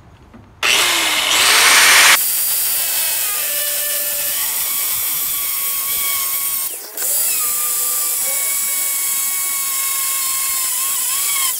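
Corded angle grinder with a cutoff wheel starting about half a second in and cutting into a stuck bed bolt head and its washer, a steady high whine over grinding noise, loudest in the first couple of seconds. It stops briefly about seven seconds in, starts again and cuts until just before the end.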